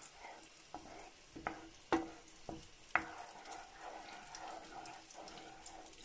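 Eggs and onions sizzling faintly in a frying pan as a wooden spatula stirs them, with several sharp knocks and scrapes of the spatula against the pan in the first three seconds.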